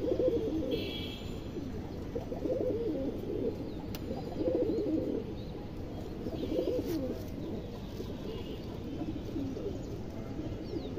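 Several caged domestic pigeons cooing, their low rolling coos overlapping and coming every second or two.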